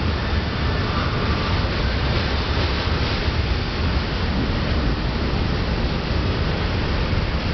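Steel wheels of a passing freight train's covered hopper cars rolling close by on the rails: a steady, loud rumble with no breaks.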